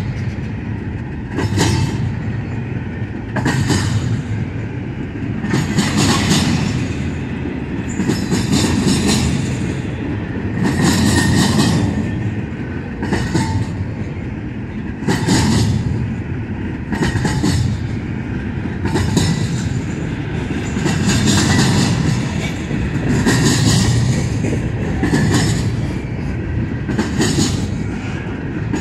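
Double-stack intermodal freight train rolling past: a steady rumble of steel wheels on the rails, with a sharper clatter every second or two as each car's wheel sets go by.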